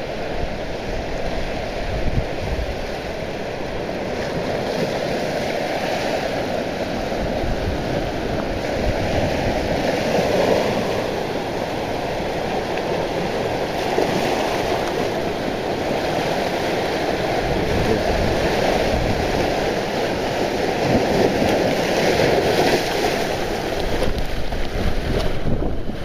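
Sea surf washing in over a rocky shore, a steady rush of waves, with wind buffeting the microphone in low rumbling gusts.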